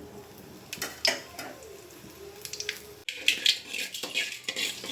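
Mustard seeds popping in hot oil in a frying pan: scattered sharp crackles over a faint sizzle, coming thicker in the second half.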